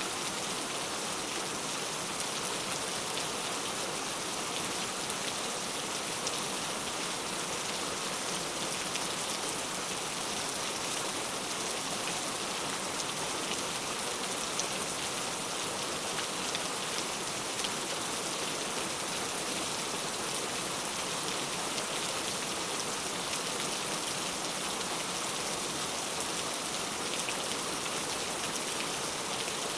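Steady rain falling, an even hiss with scattered faint drop clicks.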